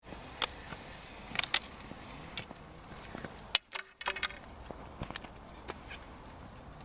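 Roller skis rolling on asphalt with sharp clicks of ski pole tips, then clicks and knocks as a biathlon rifle is pulled off its back harness. The sound drops out briefly a little past halfway.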